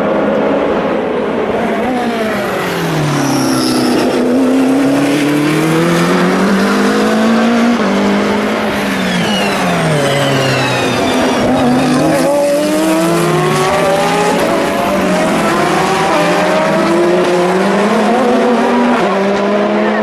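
Endurance race cars' engines, two or more overlapping: their notes fall as the cars slow for a tight corner, then climb in steps through the upshifts as they accelerate away. A high whine rises over the engines a couple of times.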